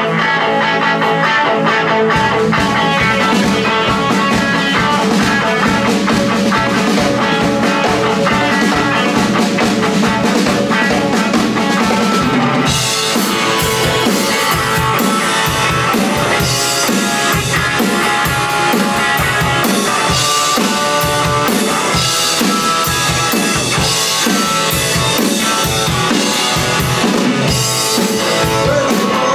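Electric guitar played through a 1967 Supro Thunderbolt amplifier in a rock riff, with a drum kit. The guitar starts alone, the drums join about two seconds in, and from about halfway the band gets fuller, with cymbals crashing.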